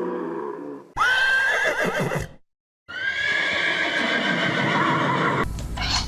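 Horse whinnying twice: a quavering whinny about a second in, then, after a brief gap of silence, a second longer whinny. Near the end it cuts to a different sound with sharp clicks.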